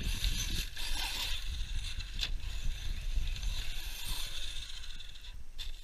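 ARRMA Siren 6s BLX brushless 1/10 4WD RC truck driving over loose gravel, its tyres crunching through the stones in a steady gritty hiss. There are a few sharp clicks about a second in, at two seconds and near the end, over a low rumble.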